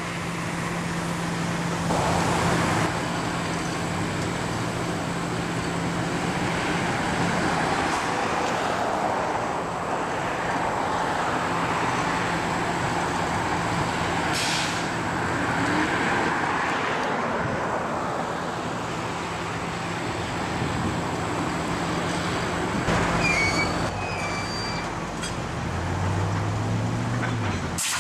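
Railroad tank cars rolling slowly past on the track, a steady noise of steel wheels on rail with a low hum under it. A few brief high squeaks come in near the end.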